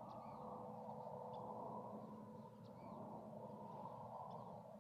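Faint small birds chirping now and then with short rising and falling calls, over a steady low outdoor background rumble.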